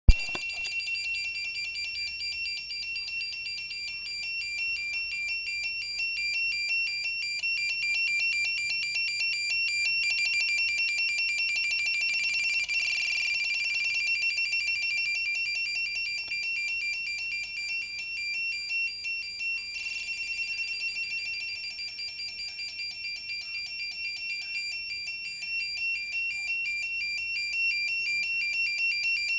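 Electronic signal sound effect: rapid, high-pitched beeping on two close tones, pulsing without a break, like a control-room signal or data-transmission tone.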